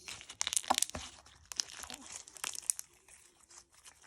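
Slime being stretched and worked by hand, giving off a rapid run of crackles and pops that is busiest over the first couple of seconds and thins out near the end.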